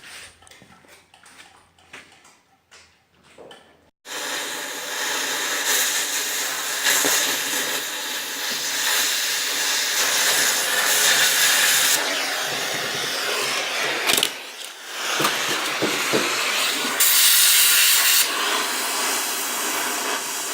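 Cutting torch hissing steadily as it burns out the truck bed's mounting bolts. It starts abruptly about four seconds in, after a few faint clicks, and dips briefly about fifteen seconds in.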